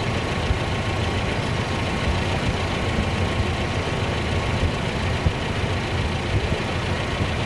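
1984 Toyota Hilux's carburetted engine running steadily, sounding not happy; the fault is traced to a vacuum advance on the distributor that is not working.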